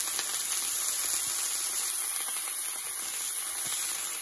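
Steak and black pudding sizzling steadily in a cast iron skillet, a constant high hiss of frying fat.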